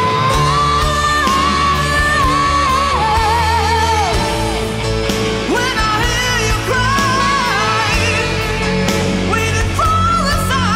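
Melodic rock (AOR) band playing: a high lead line held and bent with vibrato over bass and drums.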